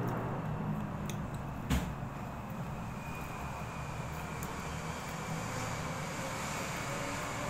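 Steady background rumble and hiss with no clear pitch, with a single sharp knock about two seconds in.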